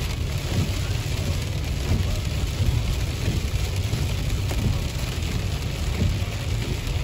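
Heavy rain hitting the windshield and roof of a moving car, heard from inside the cabin, over a steady low rumble of the car on the wet road.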